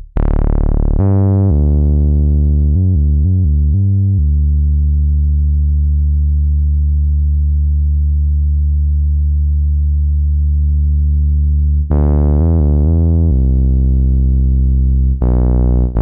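Cherry Audio LowDown, a software emulation of the Moog Taurus bass pedal synthesizer, playing deep bass notes on its Heavy Morph preset. Each note opens bright and then mellows. There are a few single notes, then a quick run of short alternating notes, one long held note, and another quick run near the end.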